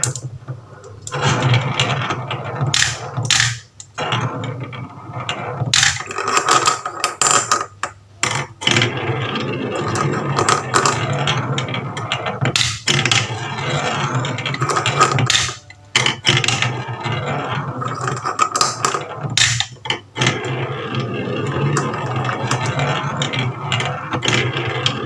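Marbles rolling and clattering down a toy marble run, with a steady rumble and many sharp clicks as they hit and drop through the track pieces.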